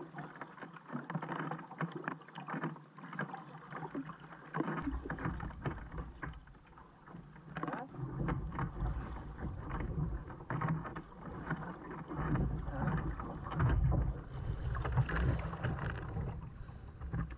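Kayak paddles dipping and splashing in calm sea water, with water lapping against the plastic hull. A low rumble comes and goes from about five seconds in.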